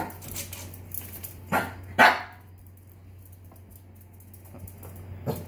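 Small long-haired dog giving a few short, sharp barks, the loudest about two seconds in and another near the end: demand barking for food.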